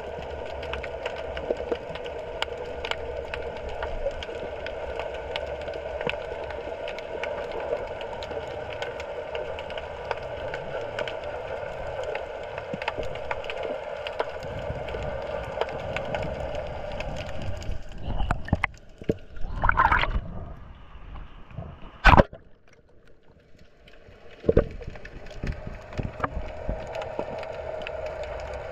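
Underwater sound through a GoPro's waterproof housing: a steady muffled wash of moving water with faint crackling clicks. About two-thirds of the way in it breaks up into a few loud bumps and a sharp knock, goes quieter for a couple of seconds with another knock, then the water sound returns.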